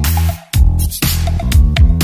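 Background electronic dance music with a heavy bass beat, which drops out briefly about half a second in.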